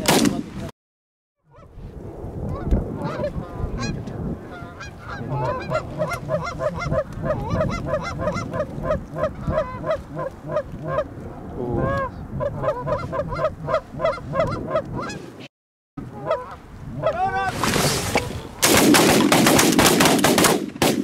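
Canada geese honking, with a long run of even honks at about two or three a second. Near the end comes a rapid volley of shotgun fire as the flock is shot at over the decoys.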